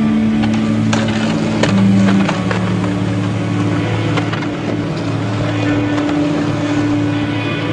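Soundtrack music of sustained, droning low notes that shift pitch a couple of times, with scattered sharp clicks over it.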